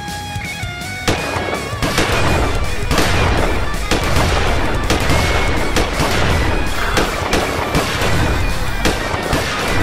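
Rapid bursts of gunfire sound effects, starting about a second in, laid over rock guitar music.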